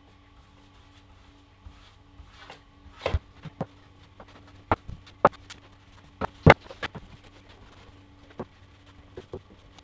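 A run of sharp knocks and taps, several within a few seconds and the loudest about six and a half seconds in, over a faint steady hum. These are handling noises made while brushing wood stain onto a plywood worktop.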